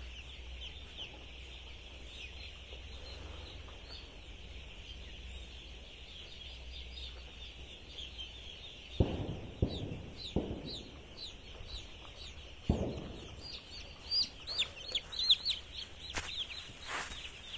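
A flock of young chicks peeping, a constant chorus of short falling chirps that grows louder and busier near the end. About nine seconds in come four heavy footsteps in flip-flops on the husk litter. A low steady hum runs under the first half.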